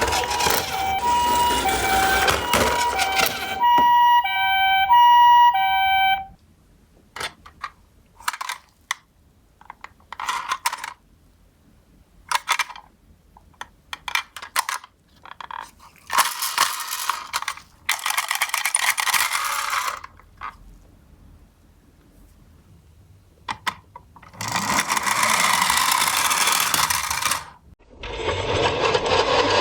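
Ambulance two-tone siren alternating between a high and a low note, which cuts off suddenly about six seconds in. After it come scattered clicks and several short stretches of rolling, rattling noise from toy minicars running on a track.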